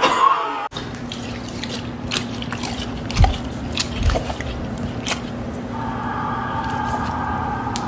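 Brief cheering from a televised football match that cuts off under a second in, then a dog crunching dry food from a metal bowl: scattered sharp clicks and two low knocks over a steady low hum. A steady high whine starts near the end.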